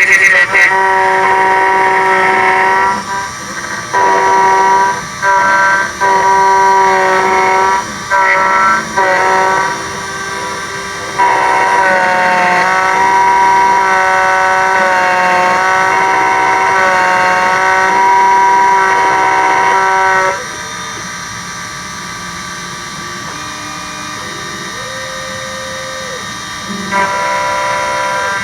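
Miracle A7 computerised key machine milling a GM 10-cut HU100 laser-cut key: a steady high whine from the cutter, dropping out briefly several times. For the last third it turns quieter, with tones that step up and down in pitch.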